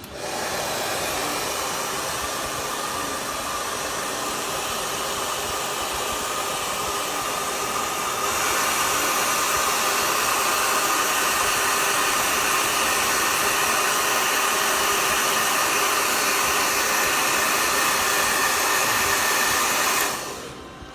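Hot air rework station blowing a steady rush of air. It gets louder about eight seconds in, then cuts off about a second before the end.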